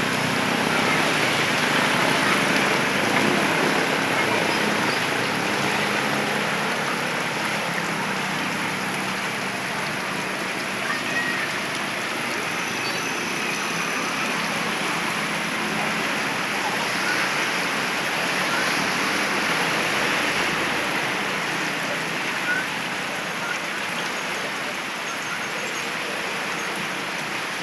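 Heavy rain falling steadily, with water streaming off a roof edge.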